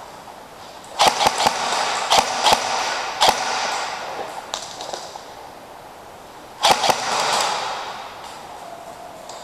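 Airsoft guns firing: a string of sharp cracking shots about a second in, with a few more near the two-thirds mark, each trailing off in echo.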